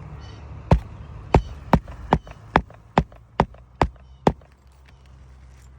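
Hammer driving a roofing nail through an asphalt shingle: nine sharp strikes at about two a second, stopping about four seconds in.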